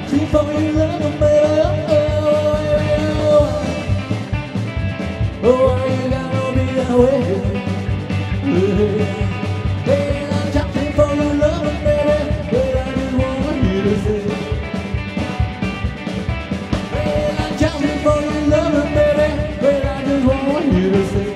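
Rock and roll band playing: a male voice singing over plucked upright bass, drums and electric guitar, with a steady beat.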